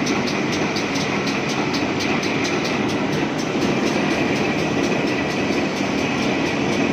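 Wood moulding machine running as teak is fed through, a steady machine noise with a held high whine and a regular ticking about four to five times a second.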